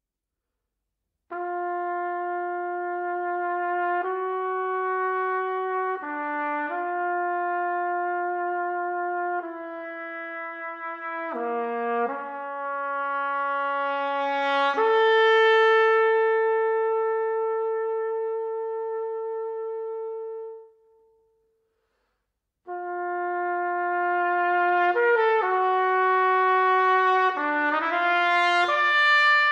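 Solo trumpet, unaccompanied, playing slow sustained notes that step up and down. It builds to one long held note that swells and then fades away. After a short silence it comes back with quicker, shorter notes.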